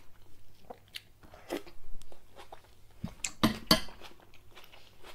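Close-up chewing of a mouthful of fresh tomato, with small wet mouth clicks, and a pair of sharper clacks about three and a half seconds in.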